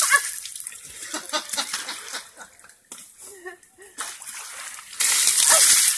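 An elephant spraying water from its trunk, splashing down onto a person: a loud splash right at the start and a longer loud gush of spray from about five seconds in, with quieter sloshing and dripping between.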